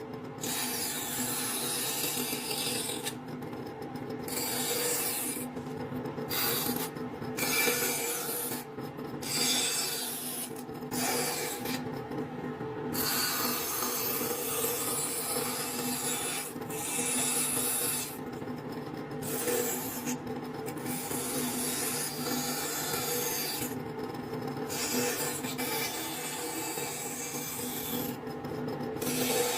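Woodworking band saw cutting wood: a rasping cutting noise over a steady motor hum. The cutting noise breaks off for brief moments every few seconds while the hum runs on.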